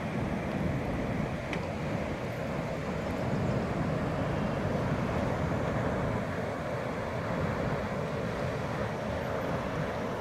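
High, muddy river water rushing through and over the gates of a concrete diversion dam, swollen after a day of heavy rain: a steady, even rush of white water.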